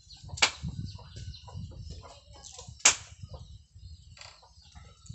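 Two sharp snaps about two and a half seconds apart, the second louder, from a toy magazine rifle being fired. Low rustling and thumps of the player moving with the gun run under them.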